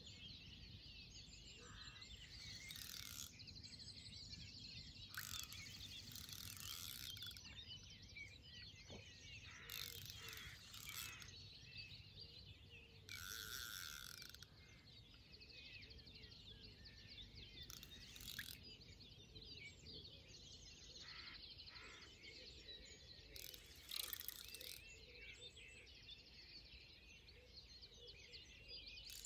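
Faint ratcheting clicks of a fishing reel being wound while a hooked tench is played on a bent rod, with birds chirping.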